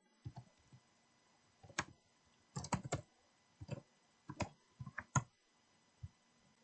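Keystrokes on a computer keyboard: scattered single key clicks, with a quick run of several keys about three seconds in.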